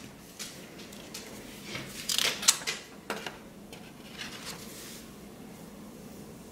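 Sheets of paper being handled, giving a few short rustles and taps that are loudest about two and a half seconds in.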